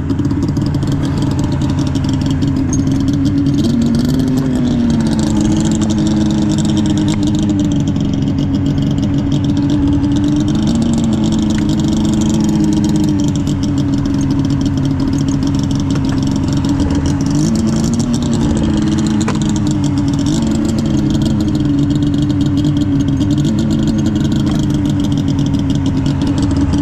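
Fuel-injected snowmobile engine idling steadily, with a few brief throttle blips that raise the revs for a moment.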